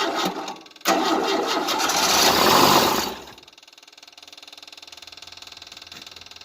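Starter cranking the 1988 Tennant 255 Series II sweeper's engine with the choke on, in two bursts with a short break just under a second in. The engine does not catch, which the owner puts down to it still not getting fuel. It then drops to a quieter, fast, even ticking.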